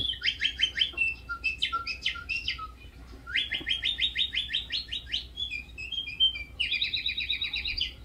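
A man doing bird-call imitations: a string of rapid, high chirping trills and whistled notes, changing from one call to another several times, with a long fast trill in the middle and another near the end.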